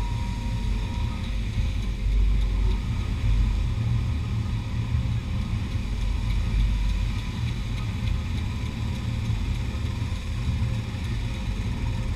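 Steady wind noise on the microphone over a beach background of breaking surf.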